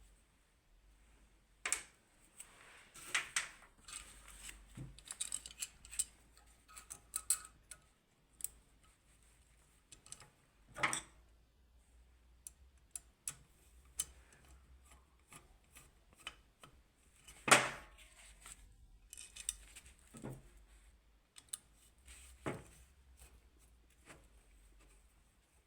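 Scattered clicks, clinks and knocks of hand tools and metal parts being handled during alternator bearing work, at irregular intervals, with the loudest knock about seventeen seconds in.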